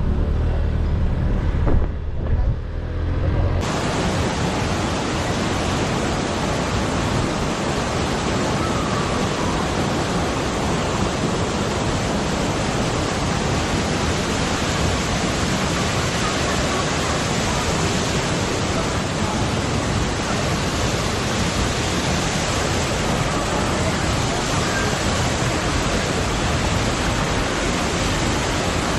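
Waterfall pouring: a steady, dense rush of falling water that cuts in suddenly about three and a half seconds in, after a low rumble with a couple of bumps.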